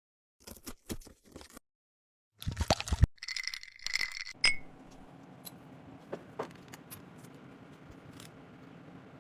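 Small kitchenware clinking and rattling: a few light taps in the first second and a half, then louder clatter with a brief ringing note from about two and a half to four and a half seconds in. After that, a faint steady hum with a few light clicks.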